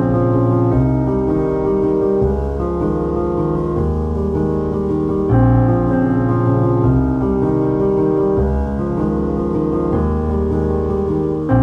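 Background piano music: held chords and notes that change every second or so.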